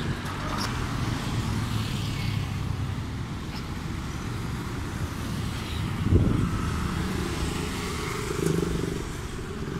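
Motorcycles passing on a road. One engine swells loudest as it goes by about six seconds in, and another passes a couple of seconds later.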